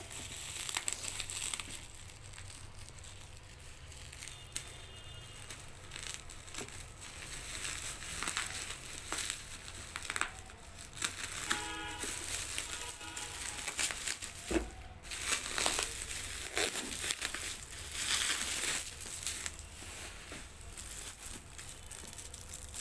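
Packaging crinkling and rustling as it is handled and unwrapped during an unboxing, with irregular crackles and crushing sounds.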